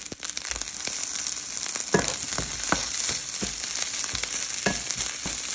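Shrimp fried rice sizzling steadily in a frying pan. A spatula stirs it, scraping and knocking against the pan in repeated strokes about every half second, mostly from about two seconds in.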